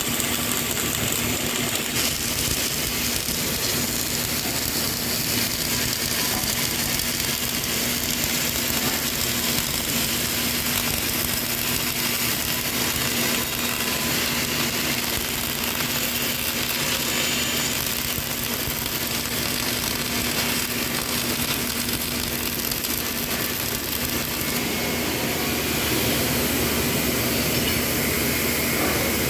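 CO2 (MIG/MAG) welding arc running continuously, a steady dense crackle and sizzle, over a steady low hum.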